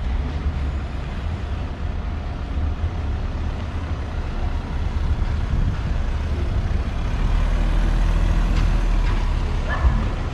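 Street traffic: car engines running close by over a steady low rumble, a little louder in the second half, with a brief rising squeak near the end.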